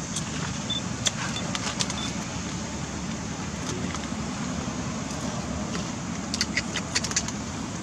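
A steady low rumble, engine-like, with a few light sharp clicks about a second in and a cluster more near the end.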